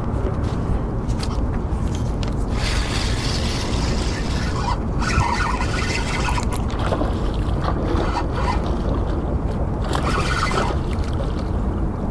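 Wind rumbling on the microphone and water lapping against a small boat's hull, with irregular splashy stretches through the middle.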